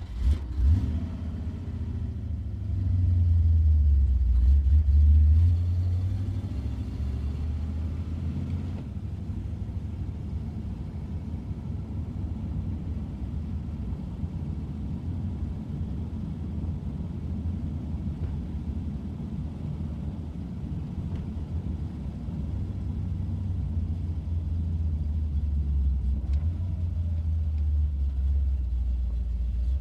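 Ford Mustang engine starting up, rising in the first few seconds, then running with a steady deep rumble that swells again near the end.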